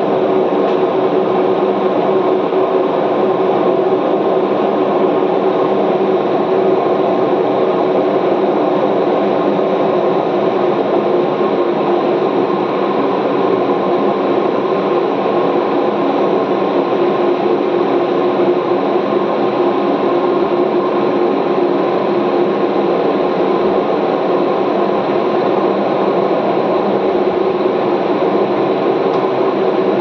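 Steady, loud rumbling roar of tornado wind, with a low drone running through it.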